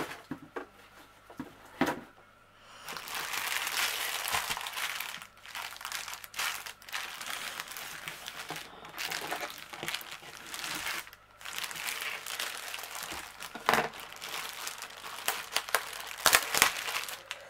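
Thin clear plastic packaging bag crinkling and rustling as it is handled. A few light knocks come first, then the crinkling starts about three seconds in and goes on in uneven bursts with short pauses.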